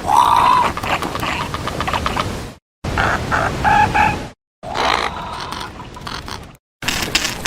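Designed pterosaur vocalizations: a rising-and-falling pitched call at the start, then short clucking honks a little past the middle, over a rough noisy background. The sound comes in four excerpts, each ended by a sudden cut to silence.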